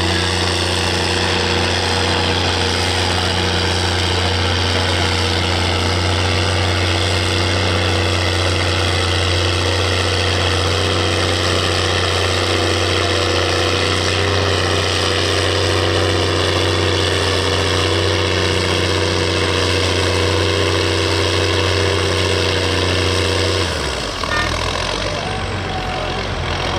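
Case IH CVX 1190 tractor's engine running steady and hard under full load as it pulls a weight-transfer sled. About three seconds before the end the note suddenly drops to a lower, rougher running as the pull stops.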